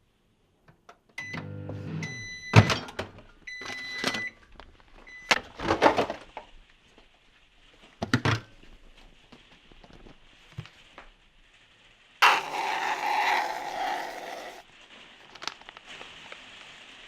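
Kitchen clatter from food being prepared: knocks and thunks, a few short electronic beeps about one to five seconds in, and about two seconds of rushing noise past the middle.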